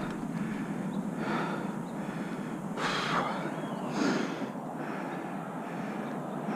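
A person's breaths close to the microphone: four short, noisy breaths about every second and a half over a steady background hiss.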